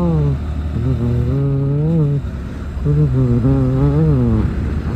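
A man humming a melody in long held notes that slide up and down, with short breaks between phrases, over the steady low rumble of the moving vehicle.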